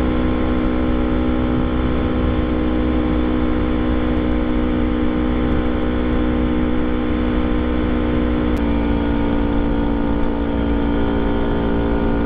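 Motorcycle engine running at a steady cruise while riding, heard from the rider's on-board camera with wind rush on the microphone. The engine note steps slightly lower about two-thirds of the way in.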